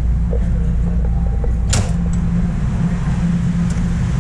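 Steady low hum of a subway car standing at a station with its doors open, with one sharp click a little under two seconds in.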